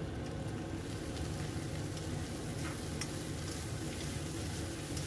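Instant noodles with chicken and sliced chilies sizzling in a wok as they are stir-fried and tossed with two spatulas, with a few light taps of the utensils against the pan.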